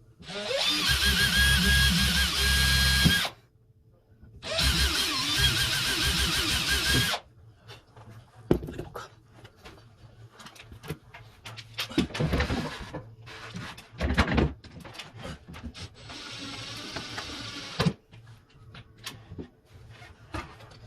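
Electric drill running in two bursts of about three seconds each, its motor whine wavering slightly, followed by scattered clicks and knocks and a shorter, quieter run of the drill near the end.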